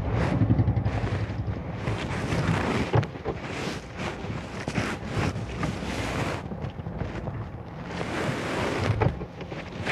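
Motorcycle engine running as it pulls away and fades into the distance, under steady wind buffeting on the microphone.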